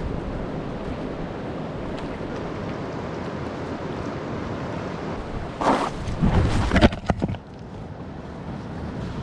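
Rough river water rushing in a steady noisy hiss. About two-thirds of the way through comes a short cluster of loud scuffs and knocks, louder than the water, after which the rush is quieter.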